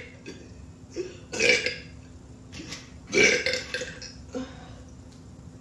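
Two loud burps, the first about a second and a half in and the second, longer one at about three seconds, with a few short, softer sounds around them.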